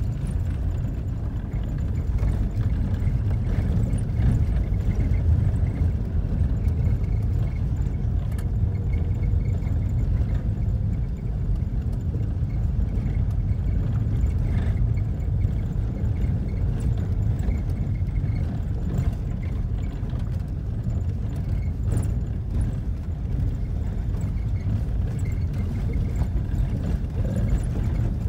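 Car driving along a dirt road: a steady low rumble of engine and tyres.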